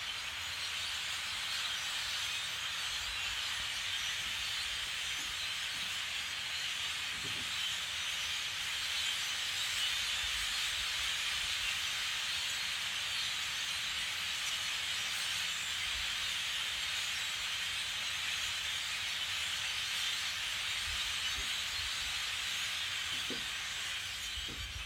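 Large flock of birds chattering all at once, blending into a steady, dense hiss-like din.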